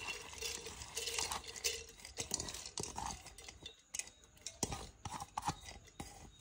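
Washed toor dal being tipped into a pressure cooker: scattered light clinks and knocks of a bowl and spoon against the cooker, with a few sharper knocks near the end.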